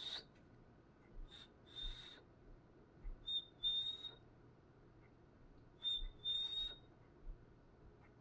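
Cockatiel whistling calls: a short high note followed by a longer held whistle with a raspy edge, repeated roughly every two seconds.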